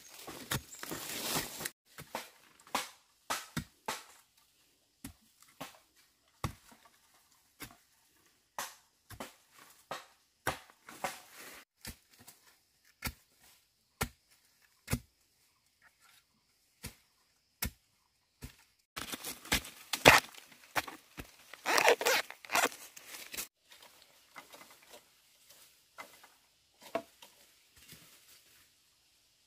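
A digging tool striking and scraping into the earth at the base of a bamboo shoot, with short irregular knocks about a second apart. About two-thirds through comes a louder stretch of crunching and tearing.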